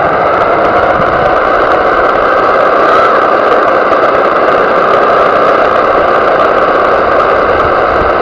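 An RC monster truck driving at speed, heard from its onboard camera: the steady running noise of its motor and drivetrain over rumble from the tyres on gravel and grass.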